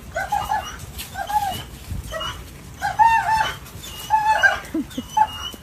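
A dog whining in short high-pitched cries, repeated in small groups about once a second.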